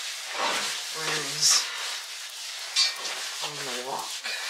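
Oil sizzling and hissing on a hot cast iron cookstove top as it is wiped across with a cloth, with a few short scrubbing strokes. A woman murmurs briefly twice.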